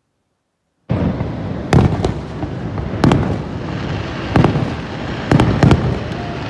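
Fireworks shells bursting: about eight sharp bangs, some in quick pairs, over a continuous background noise that starts abruptly about a second in after near silence.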